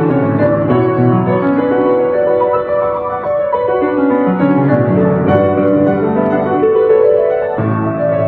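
Background piano music, slow and gentle, with held notes over a low bass line.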